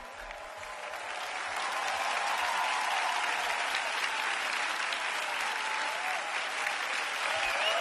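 Concert audience applauding, swelling over the first couple of seconds and then holding steady.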